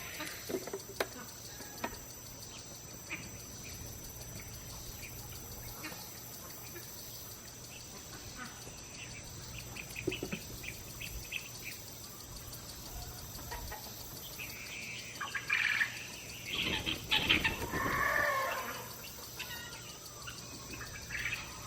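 Birds calling, with the loudest, drawn-out calls about three quarters of the way through, over scattered light clicks and a faint steady high tone.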